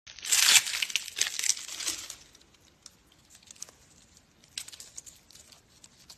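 Pineapple crown being twisted off the fruit: dense crackling and tearing of leaves and fibres for about two seconds, loudest near the start. After that come a few faint clicks and snaps.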